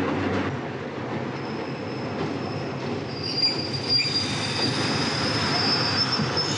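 New York City subway car running on the rails: a steady rumble of wheels on track, with a high metallic wheel squeal setting in after about a second and a half and growing louder about halfway through.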